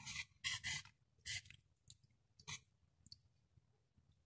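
Wire whisk beating a thin flour-and-water batter in a metal pot: a string of short, faint wet swishes and scrapes about twice a second, fading out over the last second or so.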